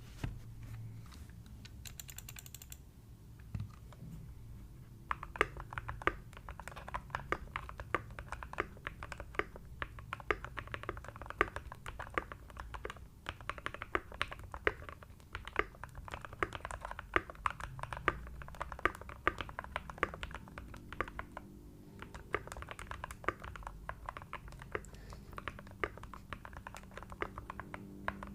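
Typing on a Keydous NJ68 Max mechanical keyboard with lubed C3 Equalz Tangerine 62g linear switches, PORON foam and band-aid mod, giving a deep, muted 'thocc' keystroke sound. The typing starts sparsely and becomes fast and continuous about five seconds in.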